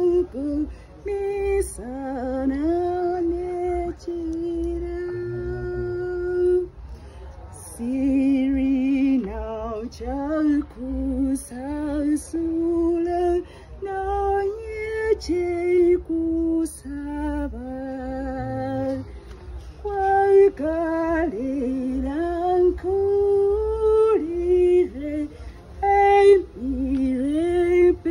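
A woman singing a gospel song of thanks, one voice alternating held notes with shorter rising and falling phrases.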